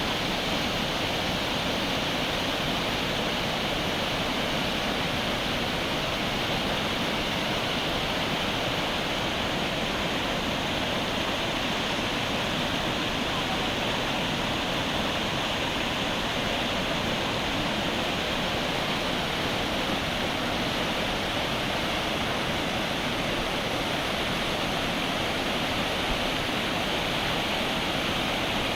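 The Lidder River's fast current rushing past in a steady, unbroken hiss of flowing water.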